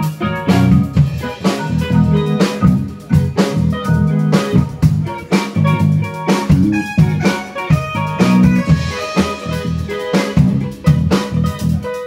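Live band playing an instrumental through PA speakers: electric guitar, electric bass and drum kit keep a steady beat, with keyboard.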